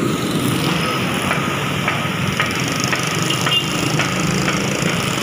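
Steady rushing hiss of water spouting up from a broken underground water pipe, with footsteps crunching on loose dirt and rubble about every half second.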